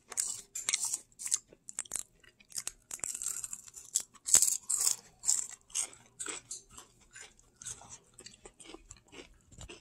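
A person biting into and chewing a piece of crisp kouign-amann, a buttery French pastry with a caramelized sugar crust: irregular crunching, loudest about four to five seconds in.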